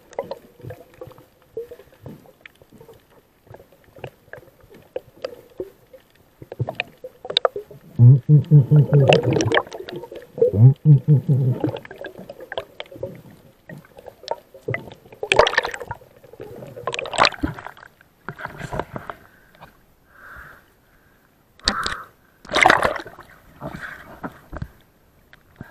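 Underwater sound through an action camera's waterproof housing while snorkelling: scattered clicks and knocks, with two stretches of low muffled rumbling about eight and eleven seconds in. Splashy bursts follow in the second half as the camera comes up to the surface.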